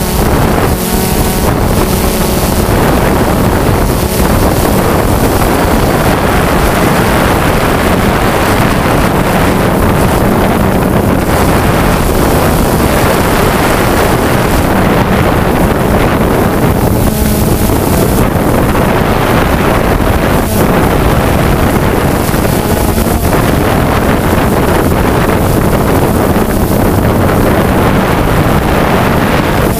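DJI Phantom 2 quadcopter's motors and propellers heard from on board: a loud, steady buzzing drone with a low hum, mixed with wind rushing over the microphone.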